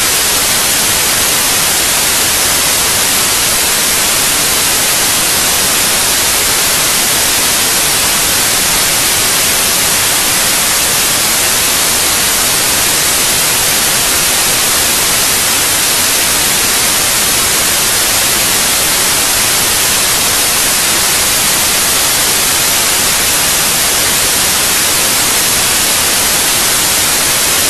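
Loud, steady static hiss with no other sound in it and no change in level or character.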